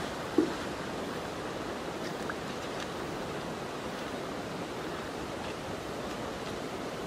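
Steady rushing of a shallow forest creek, with one short low thump about half a second in.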